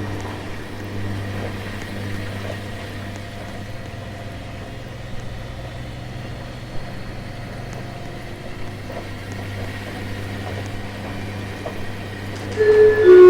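Washing machine running with a steady low hum. Near the end, a loud short run of electronic tones steps down in pitch.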